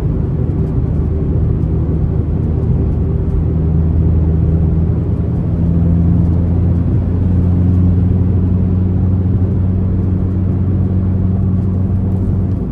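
Volkswagen Mk7 GTI's turbocharged 2.0-litre four-cylinder engine pulling steadily while driving, with road noise. The engine note steps up slightly and gets a little louder about halfway through.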